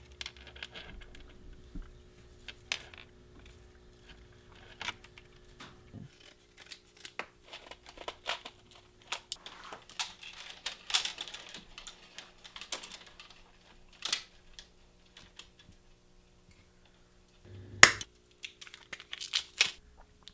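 Scattered small clicks, clinks and rustles of hands working metal jack chain, split key rings and a cutting tool, with one sharp click near the end.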